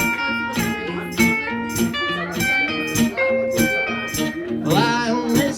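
Live band playing an instrumental break: guitar picking out a melody over a steady beat, with a wavering held note near the end.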